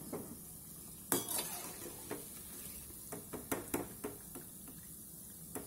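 Metal slotted spoon knocking and scraping against a kadhai as fried koftas are lifted out of the oil, over a faint sizzle of the hot oil. The loudest knock comes about a second in, with a cluster of clinks around three to four seconds.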